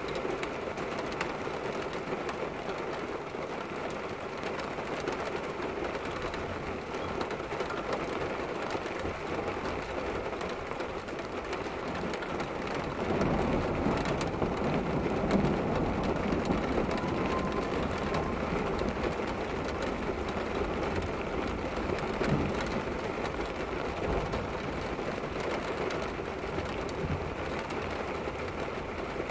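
Heavy storm rain falling as a steady rushing noise. About thirteen seconds in it swells louder with a deeper rumble, then eases back after about ten seconds.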